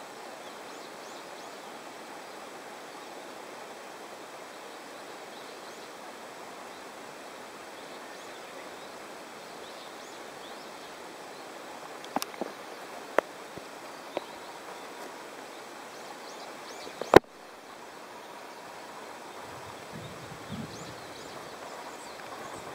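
Steady outdoor background hiss, broken by a few sharp clicks about halfway through and one loud click about three-quarters through; a few soft low thumps near the end.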